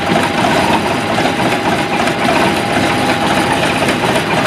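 Carbureted inboard gasoline boat engine idling steadily in an open engine hatch, still warming up on the choke after a cold start, with the bilge blower running too. A steady whine sits over the engine noise.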